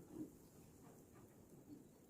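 Near silence, with one faint short noise about a fifth of a second in.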